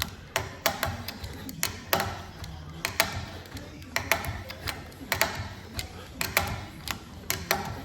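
Sharp metal clicks and taps from hand tools and fittings, a few a second at an uneven pace, while AN-10 braided hose ends are being assembled and fitted.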